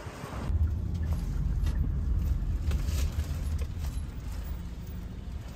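Taxi driving, heard from inside the cabin: a steady low road-and-engine rumble that comes in about half a second in, with a few faint ticks over it.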